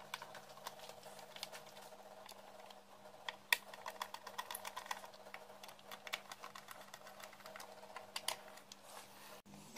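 Screwdriver tightening the screws that hold the power transistors to a car subwoofer amplifier's metal chassis: faint, irregular small clicks and ticks of metal on metal, one sharper click about three and a half seconds in, over a steady low hum.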